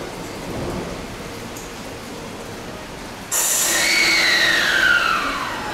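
Steady heavy rain, then about three seconds in the Toyo IGBT-VVVF inverter of a Keio 1000-series electric train comes in abruptly and loud. Its whine falls steadily in pitch as the train slows.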